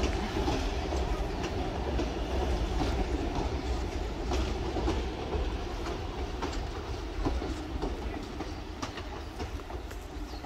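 Heritage passenger carriages rolling past over a steel girder bridge, a steady rumble with wheels clicking on the rails, slowly fading as the train moves away.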